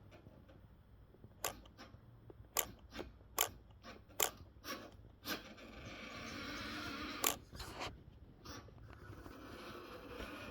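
3D-printed RC model truck driving: irregular sharp plastic clicks and crunches, then a steady whir from its electric motor, which the owner says was overloaded and close to burning out.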